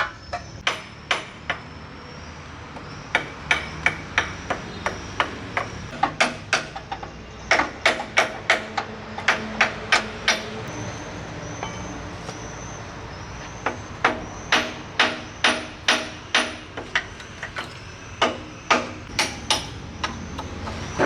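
A hammer striking metal again and again, sharp ringing blows at an uneven pace, with a pause of a few seconds about halfway through.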